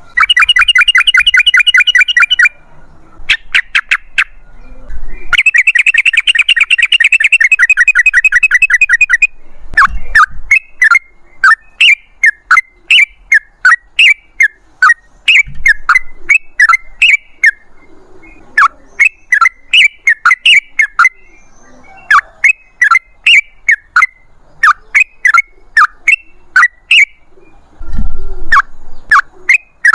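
Yellow-vented bulbul (trucukan) singing. Two fast rolling trills of rapidly repeated notes come in the first nine seconds, then a long run of short, bubbling chirped notes at about two a second.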